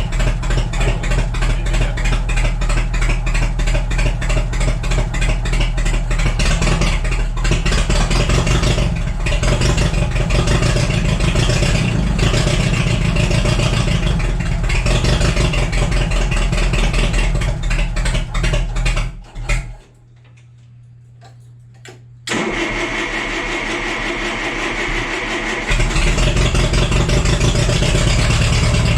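Old forklift's gasoline engine running after a points-ignition tune-up, with a fast, even beat; the owner is still chasing a miss. About 19 seconds in the sound cuts out suddenly to a faint hum, then the engine is heard again, quieter at first and full strength again near the end.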